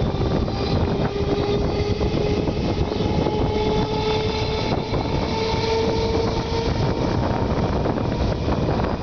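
Passenger train running at speed, heard from inside a coach beside an open window: a steady rumble of wheels on rails. Through it runs a whine that rises slowly in pitch and fades out about seven seconds in.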